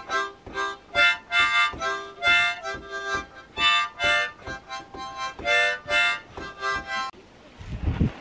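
A child playing a harmonica in short rhythmic chords, about two to three a second. About seven seconds in the playing cuts off and wind buffets the microphone with a low rumble.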